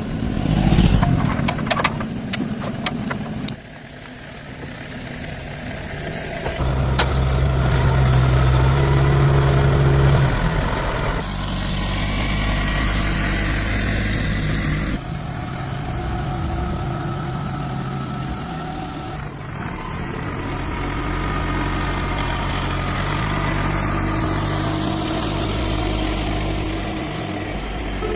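Car engine idling steadily, with a few clicks and knocks in the first few seconds.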